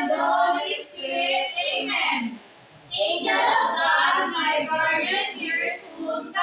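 Children singing together, with a brief pause about two and a half seconds in.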